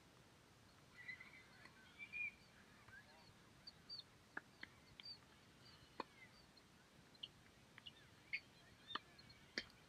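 Faint, sharp pops of a tennis ball struck by racquets and bouncing on a hard court during a distant rally, about half a dozen in the second half. Faint bird calls, clearest in the first couple of seconds.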